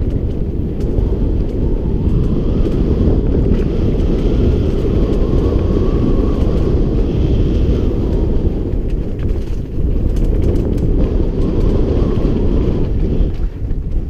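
Wind buffeting a helmet or handlebar camera microphone on a fast mountain-bike descent, a loud steady rumble, over tyres rolling on a loose dirt trail with scattered small clicks and rattles from the bike.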